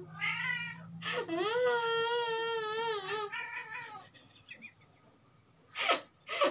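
A person's fake crying: two drawn-out, wavering wails in the first three seconds, then a lull and two short, sharp sobbing breaths near the end. The crying is put on, not real.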